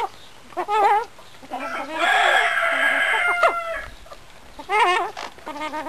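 A chicken crowing once, a long call of about a second and a half that falls in pitch at its end, with shorter wavering calls from other hens in the flock before and after it.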